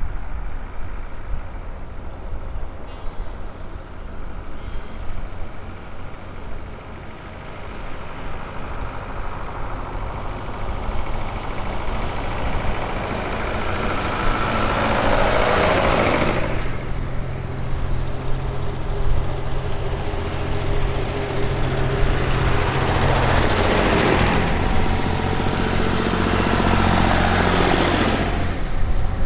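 Vintage tractors driving past one after another: the engine sound builds as the first approaches and peaks as it passes about halfway through, then two more pass in the last third.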